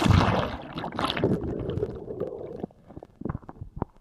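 Inner tube on a waterslide reaching the splashdown: a loud rush of water and wind noise that dies away about two and a half seconds in, followed by a few scattered knocks.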